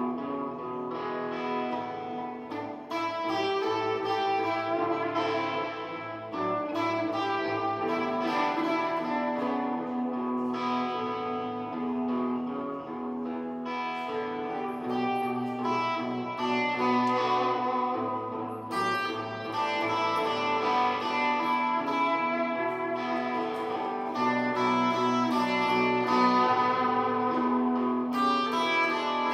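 Guitar playing a blues, with held bass notes and chords under it that change every few seconds.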